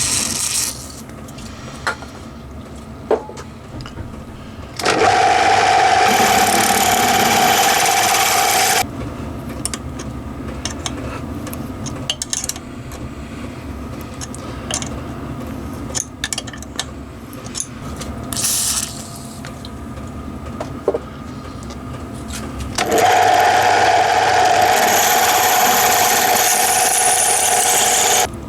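An electric drill runs twice, for about four and five seconds, with a steady whine while it drills out the worn stud-bolt holes in a primary case to take Helicoil thread inserts. Between the two runs there is a low hum and a few light clicks of handling.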